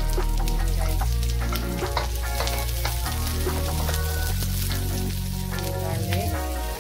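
Chicken pieces, garlic and onion sizzling in oil in a pan as they are stirred, over background music with a steady bass line.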